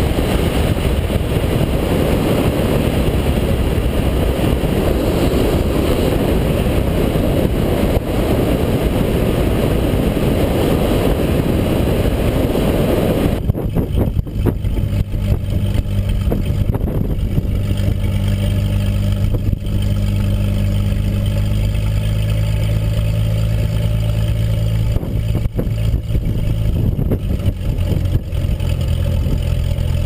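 Cirrus SR-20's six-cylinder piston engine at low landing power, buried under heavy wind rush on the microphone. About halfway through the wind noise drops away suddenly, leaving the engine's steady low hum as the plane rolls down the runway.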